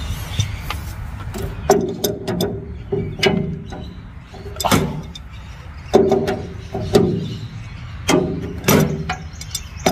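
Spanner working a metal fitting on a tractor engine: irregular sharp metallic clicks and short scrapes as the wrench is repositioned and turned.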